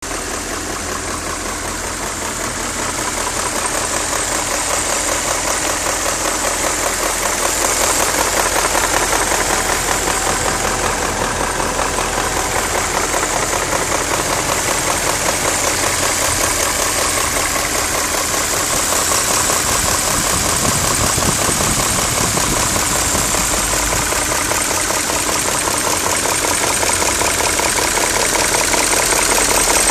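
BMW E39 M5's S62 V8 engine running with a fast, steady knocking, which the owner suspects may come from the VANOS variable valve timing system.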